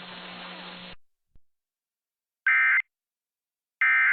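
Weather radio hiss and hum stop about a second in, followed by a click. Then come two short, loud buzzy bursts of EAS/SAME digital data tones about a second apart: the end-of-message code that closes the tornado warning broadcast.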